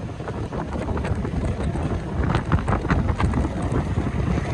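Riding in the open cargo bed of a loader rickshaw: its engine runs steadily under wind buffeting the microphone. Many short rattles sound throughout.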